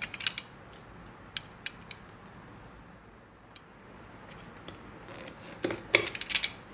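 A blade cutting the sealing tape on a power supply's box. A few sharp clicks at first and scattered small ticks give way to a denser run of crackling cuts and rustles in the last second or so.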